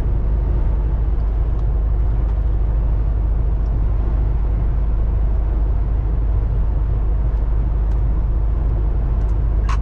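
Steady low drone inside the cab of a MAN TGX truck cruising at constant motorway speed: engine and tyre-on-road noise, with no change in pitch or level.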